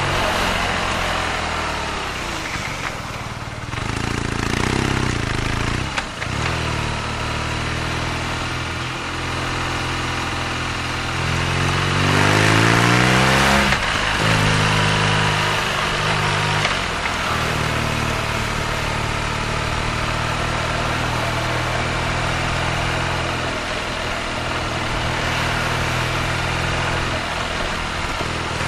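BMW R nineT's air/oil-cooled boxer twin running at steady low revs through the exhaust, with one rise in revs about twelve seconds in that cuts off sharply.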